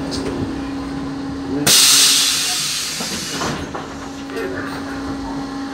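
Iveco Socimi 8820 trolleybus interior: a steady electrical hum, then, about a second and a half in, a sudden loud hiss of compressed air released by the bus's pneumatic system that fades over about a second.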